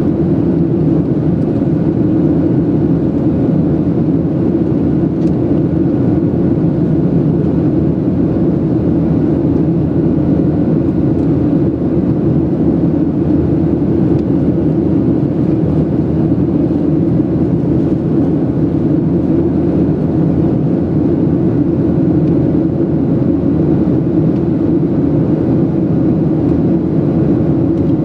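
Boeing 737-700 cabin noise during the climb after takeoff: the CFM56-7B turbofans and the airflow over the fuselage make a loud, steady low drone that does not change.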